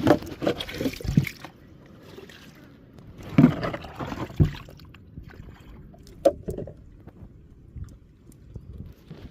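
Water splashing and sloshing in several short irregular bursts: a cluster at the start, another about three and a half to four and a half seconds in, and a brief one after six seconds.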